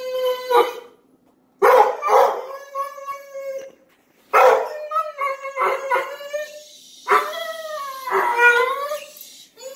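A dog whining in high, drawn-out, dolphin-like cries, in three bouts that each open with a muffled bark made through a closed mouth.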